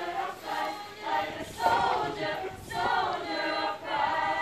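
A group of voices singing a Christian song together, in short phrases of about a second each.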